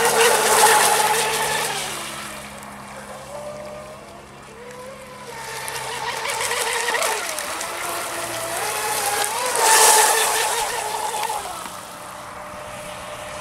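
Homemade 3D-printed RC outrigger speedboat running at speed, its motor whine rising and falling in pitch with the throttle, over a hiss of spray. It is loudest about a second in and again around ten seconds in, as the boat comes close.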